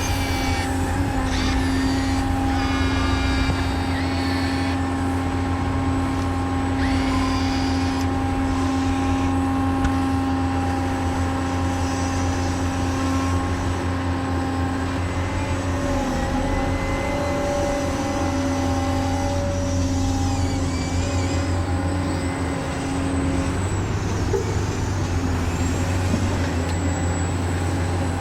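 Radio-controlled model truck's electric motors and gearboxes running continuously, a steady whining hum with several held tones.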